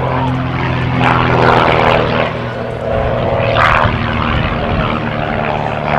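Aerobatic biplane's piston engine and propeller running steadily as the plane makes a pass. A rushing noise rises over the engine drone about one to two seconds in and again just before four seconds.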